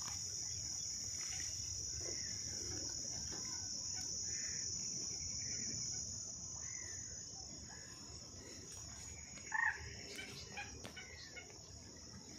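Steady high-pitched chirring of insects in a reed marsh. Faint scattered bird calls sound over it, with one short, louder call about nine and a half seconds in.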